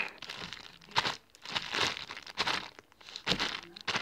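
Glue slime being squished and stretched in the hands, making irregular bursts of crackling with a few sharp clicks and pops.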